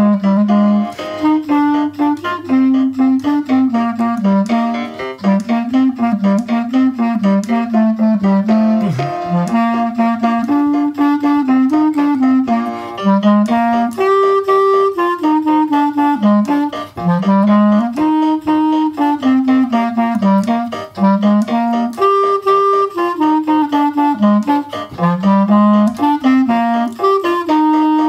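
Symphonic wind band playing a march, clarinets and brass together, with a bouncing melody line and a steady pulsing beat.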